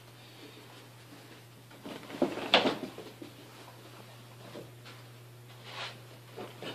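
Two dogs play-fighting: a few short knocks and scuffles, the loudest cluster about two and a half seconds in and smaller ones near the end, over a steady low hum.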